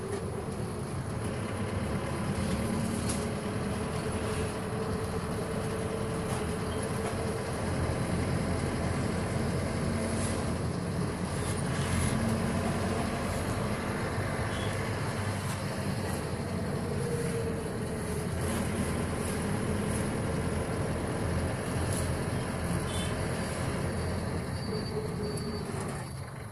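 Engine and road noise of a moving cab, heard from inside: a steady rumble with a faint engine hum that rises and falls in pitch a few times.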